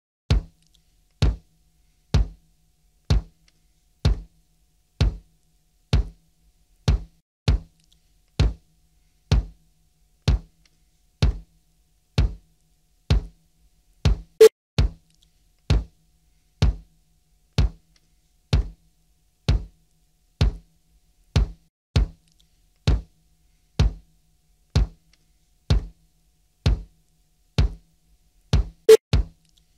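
Electronic kick drum, a drum-machine bass drum, struck alone about once a second as a speaker test signal. The hits are deep thumps with a click on top and a quick decay, with a sharper, brighter click near the middle and another near the end. The signal is switched from the left channel to the right partway through.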